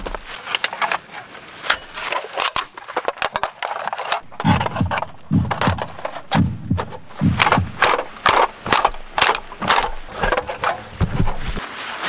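Thin sheet-metal panels of a battered old folding fire pit clanking and scraping as they are unfolded and slotted together: a busy run of sharp clicks and knocks, heavier from about four seconds in.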